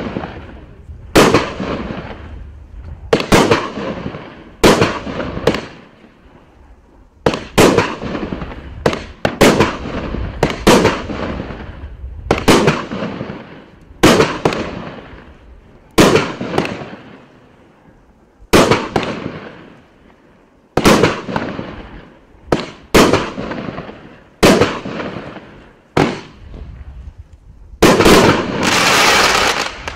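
Riakeo Vortex 7 19-shot, 30 mm consumer firework cake firing its shots one after another, about every one to two seconds, each a sharp bang followed by a fading hiss. Near the end the shots run together into a louder, continuous stretch.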